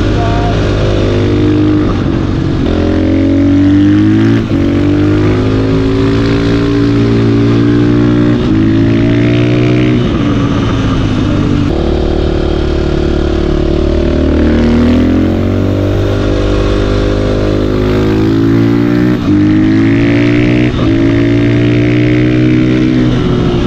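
Supermoto motorcycle engine on its stock exhaust, running loudly under way. The engine note climbs and falls, with several abrupt changes that fit gear shifts.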